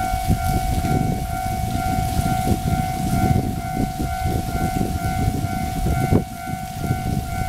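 Taiwan Railways level-crossing warning signal ringing: a steady, rapidly repeating electronic tone, warning of an approaching train. It sounds over loud, uneven low-pitched noise.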